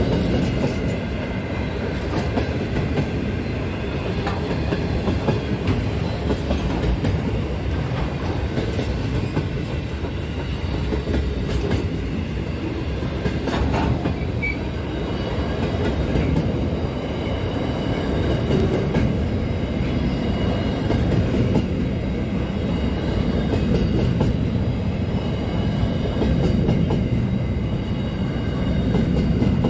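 Freight train wagons rolling past at speed: a steady rumble of steel wheels on rail, with scattered clicks as the wheels cross rail joints.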